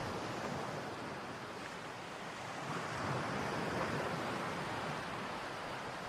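Steady rush of wind and sea noise on the open deck of a moving car ferry, swelling slightly about halfway through.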